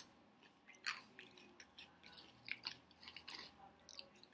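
Lay's potato chips crunching as they are chewed, in quiet, irregular crackles, with another chip bitten near the end.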